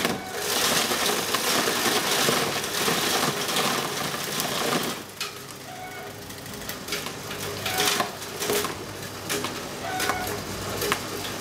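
Takyo TK15 electric forage chopper shredding a bundle of grass, similar to elephant grass, as it is fed into the hopper: a dense crunching for about five seconds. Then the machine runs empty, with a steady motor hum and a few light clicks.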